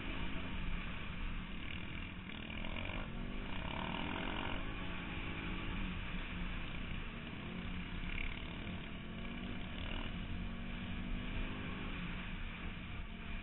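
Quad bike engine running under throttle as it is ridden, its pitch rising and falling with the throttle and climbing about three seconds in, over a steady rush of wind noise on the helmet-mounted microphone.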